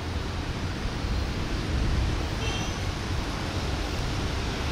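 Diesel locomotive approaching at the head of a passenger train: a steady low engine rumble mixed with an even rushing noise from the moving train.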